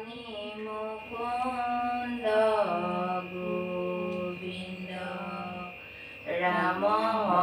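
Women chanting Hindu devotional prayer verses in a drawn-out, sung recitation, long held notes bending up and down, with a brief pause about six seconds in.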